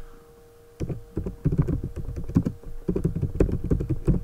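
Typing on a computer keyboard: a quick, uneven run of keystrokes that starts about a second in.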